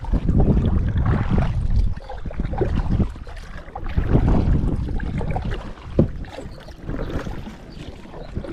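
Kayak paddling on a river: water sloshing and wind rumbling on the microphone, in two swells, with a single sharp knock about six seconds in.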